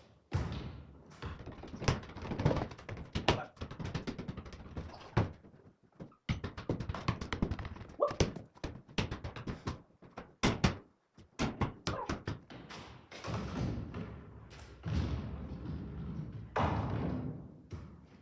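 Repeated, irregular thunks and taps of impacts.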